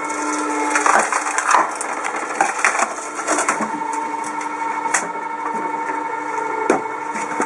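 Electric cone log splitter: the motor hums steadily while its spinning threaded steel cone screws into a log, and the wood creaks and cracks irregularly as it is forced apart, with a sharp crack about five seconds in.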